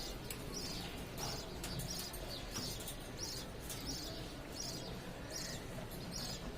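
A parrot chirping in a steady series of short high chirps, about two a second.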